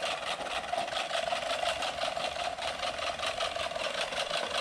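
Manual push reel lawn mower rolling across short grass: the spinning reel blades give a steady whirr with a fast, even clicking.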